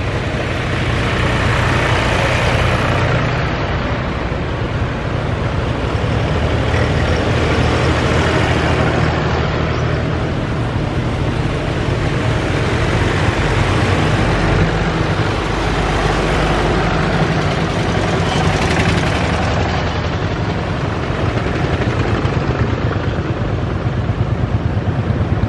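Engines of vintage farm tractors running as the tractors drive past one after another, the sound swelling and fading with each pass over a steady low engine note. An old Unimog truck's engine comes in near the end.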